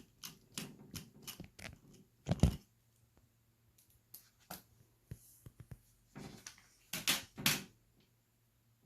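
Small clicks and taps of a smartphone and its parts being handled during disassembly. A louder knock comes about two seconds in, and a few louder handling noises come near the end.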